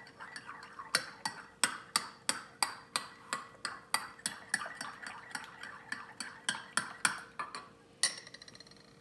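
A metal spoon stirring iced coffee in a glass mug, clinking against the glass and the ice cubes about three times a second, stopping near the end.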